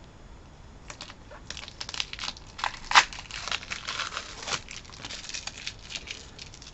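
Packaging crinkling and tearing as the end of a poster tube is pulled open by hand, a dense run of crackles starting about a second in, with one sharp snap about three seconds in.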